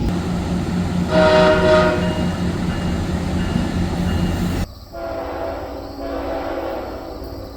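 Train horn: a short, loud chord blast about a second in over the steady rumble of a passing train. After an abrupt cut, a fainter, longer horn chord sounds.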